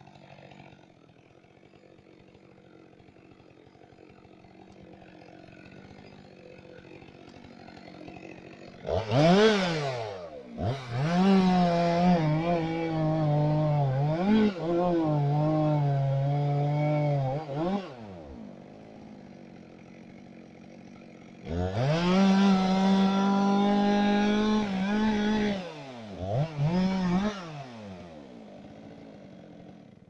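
Two-stroke chainsaw idling, revving about nine seconds in, then cutting through a log under load for several seconds before dropping back to idle. A second cut follows a few seconds later, then two short revs and idle again.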